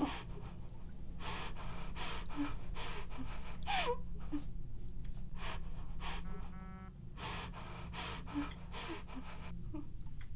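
A gagged woman's panicked breathing: rapid gasping, sobbing breaths, about two to three a second, muffled by the gag, with short whimpers between them. A short buzz about six and a half seconds in.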